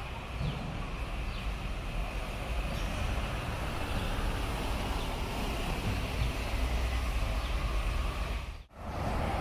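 Double-decker buses passing on a road, with steady engine rumble and tyre noise. It drops out abruptly for a moment near the end, then resumes.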